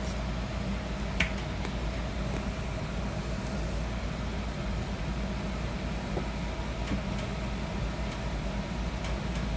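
Steady low mechanical hum with a single sharp click about a second in.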